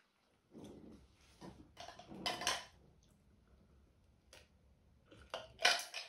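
Close-miked eating and drinking sounds: chewing, then drinking from a glass of Coca-Cola with ice and setting the glass down, heard as short sharp clicks and clinks. The loudest come about two seconds in and again near the end.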